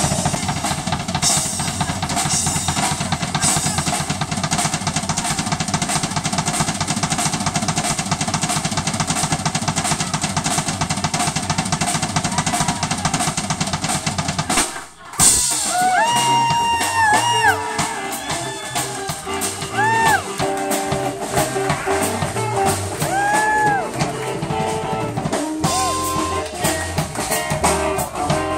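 Live blues band playing loud, with drum kit, electric guitars and keyboard. About halfway through the band stops dead for a split second, then comes back in with an electric guitar lead of bent notes over the drums.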